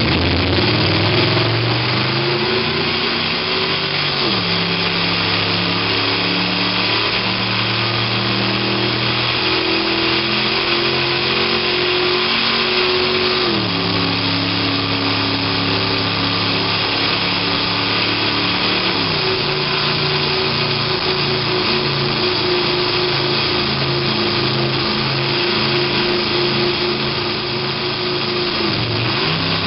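Simulated sports-car engine sound from the XLR8 iPhone app, played through the car's sound system: the engine note climbs in pitch and drops suddenly at each upshift, three times, with a brief dip near the end.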